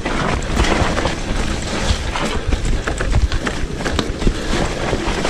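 Electric mountain bike ridden fast down a leaf-covered dirt singletrack: a constant low rumble of tyres on the dirt and leaves, with frequent sharp rattles and knocks from the bike jolting over bumps.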